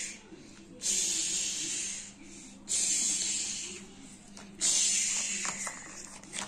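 Frying sizzle sound effect, as of food in hot oil, in three bursts about two seconds apart. Each cuts in sharply and fades away.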